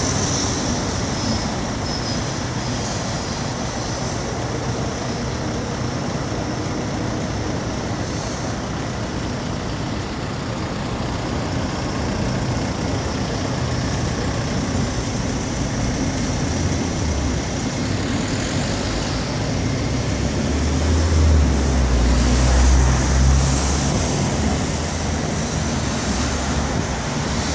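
Road traffic on a city street: a steady wash of passing-vehicle noise, with a heavy vehicle's low rumble building about two-thirds of the way through, loudest for a few seconds, then fading.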